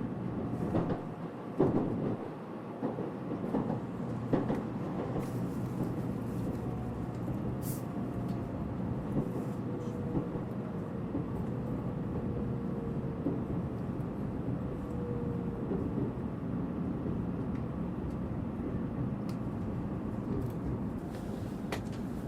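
Steady running noise inside a Tokaido Shinkansen carriage, with a few knocks in the first seconds and a faint whine that slowly falls in pitch through the middle.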